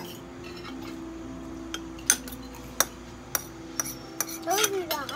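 Spoons and forks clinking against ceramic plates and bowls at a meal: a handful of sharp, separate clinks over a steady low hum, with a brief voice near the end.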